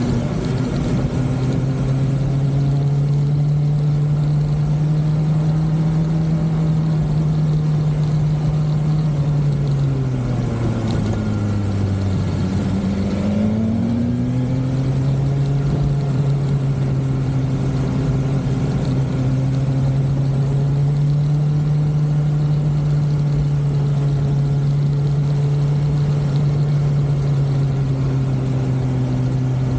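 BMW S1000XR motorcycle's inline-four engine running at a steady cruise. About a third of the way in its pitch falls briefly, then climbs back and holds steady again.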